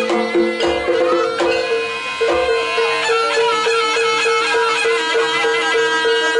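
Live jaranan music: a reedy wind melody over a low note that repeats evenly about twice a second from about two seconds in, with a few drum thumps early on.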